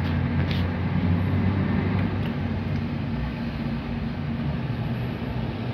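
MAN TGM 26.340 recycling truck's diesel engine running steadily at a standstill, a low hum that is a little louder in the first two seconds.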